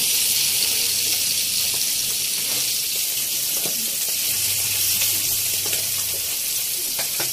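Whole mudskippers (nivti fish) shallow-frying in hot oil on a tawa: a steady sizzling hiss with a few faint crackles.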